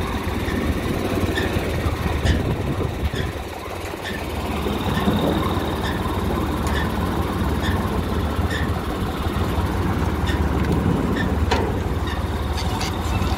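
Tractor-driven threshing machine running steadily, its pulleys, belts and screen turning, over the low hum of the tractor engine. A light click comes about once a second.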